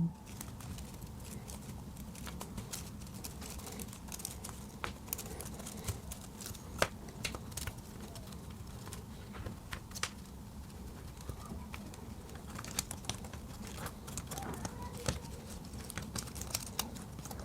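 Small plastic parts of a correction tape pen being handled: scattered faint clicks and taps, irregularly spaced, over steady low background noise.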